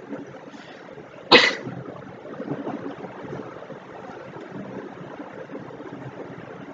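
A person's single short cough about a second and a half in, over a steady background hiss.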